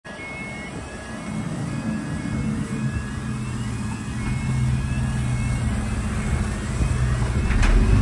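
Fire engine approaching and passing close by on a wet road. Its diesel engine grows louder, with tyre noise on the wet tarmac, and it is loudest as the truck turns past near the end. A siren sounds faintly in alternating high and low notes for the first six seconds or so.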